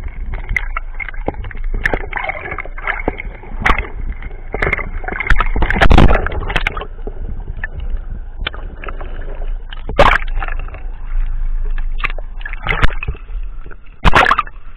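Muffled water sloshing and gurgling against an action camera held underwater, with scattered knocks and clicks and a low rumble. About fourteen seconds in there is a splash as the camera breaks the surface.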